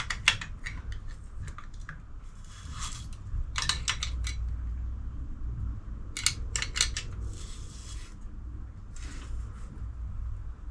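Clusters of sharp metallic clicks and short scrapes as a spanner turns the threaded spring-perch collar on a BC Racing coilover, backing off the spring preload a turn at a time, with pauses between turns.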